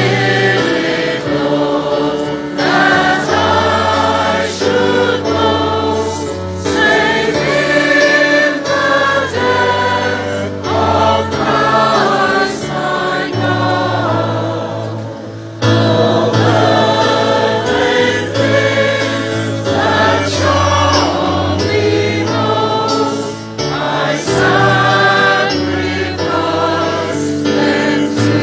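Gospel-style choir singing over an instrumental backing with steady held bass notes. The music dips and then comes back in sharply about halfway through.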